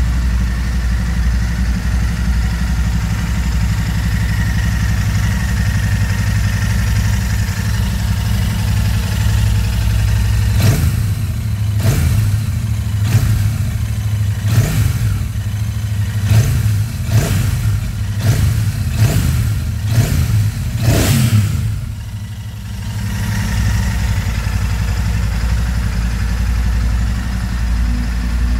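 Royal Enfield Super Meteor 650's 648 cc parallel-twin engine idling through its stock exhaust, with a run of about ten quick throttle blips in the middle, then settling back to a steady idle.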